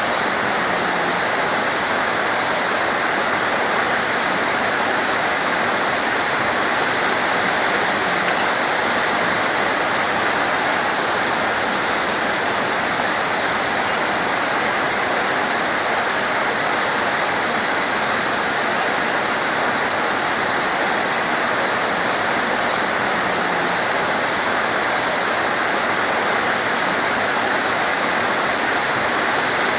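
Torrential rain pouring steadily, a dense even hiss that never lets up, with one faint click about twenty seconds in.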